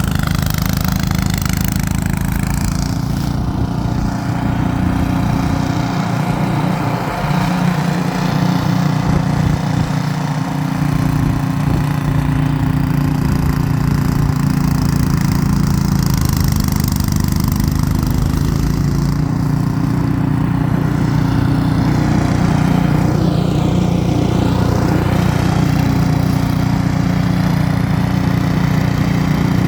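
Ariens 28-inch two-stage snowblower's engine running steadily at working speed while the machine cuts into a snowbank of wet, heavy snow.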